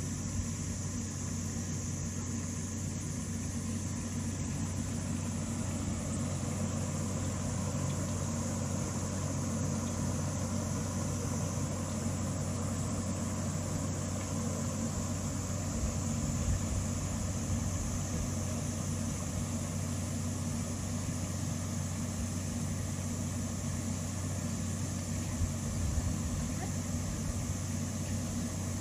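Steady low machine hum, like an engine or motor running without change.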